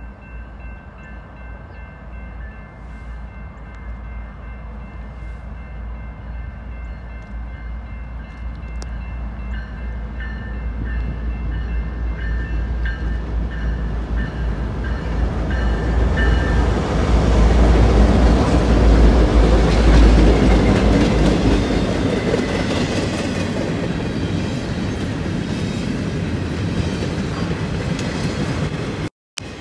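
BNSF freight train's diesel locomotives approaching and passing. The low engine rumble builds steadily to its loudest about two-thirds of the way through as the engines go by, then gives way to the steady rolling noise of intermodal well cars. Faint horn tones sound during the approach, and the sound cuts out briefly near the end.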